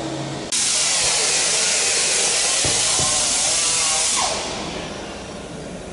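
A loud, steady hiss of rushing air starts suddenly about half a second in, holds for about four seconds, then fades away.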